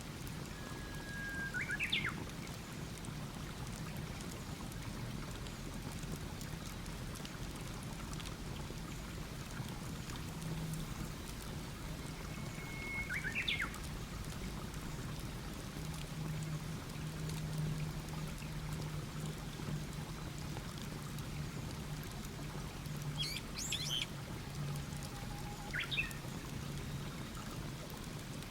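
Wood campfire crackling softly with faint scattered pops, under birdsong. Twice a songbird sings a long held whistle that ends in a quick rising flourish, and there are shorter high calls near the end.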